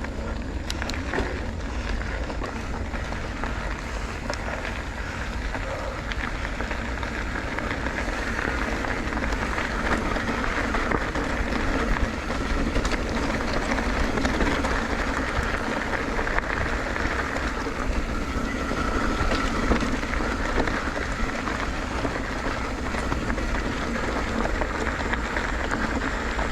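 Steady wind and road noise from a moving bicycle ride, with a low rumble of wind buffeting the microphone.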